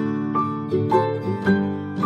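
Background music: a plucked string instrument picking out a light melody, a new note every few tenths of a second.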